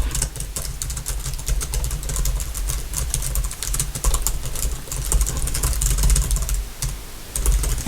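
Fast typing on a computer keyboard close to the microphone: a dense run of key clicks with a low thud beneath, easing off briefly near the end.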